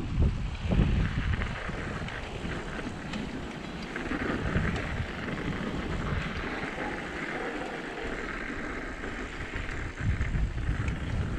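Wind buffeting the microphone of a motorcycle rider on the move. Heavy low gusts come in the first second and again near the end, with a steadier rush between.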